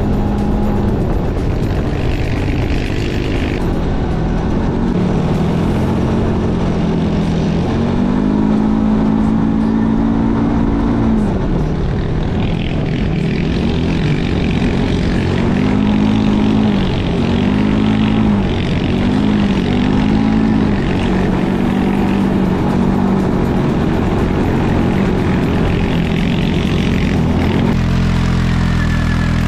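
ATV engines running over rough ground, the engine note rising and falling again and again as the throttle is opened and eased. Near the end it changes abruptly to a steadier, lower engine sound.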